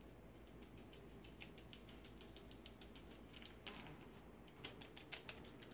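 Faint crinkling and light ticking of a foil seasoning packet being torn and emptied into a small metal bowl, with a few sharper clicks about two thirds of the way through.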